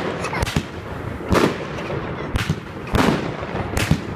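Multi-shot fireworks battery ("Armageddon") firing: sharp bangs about once a second, each with a short echoing tail.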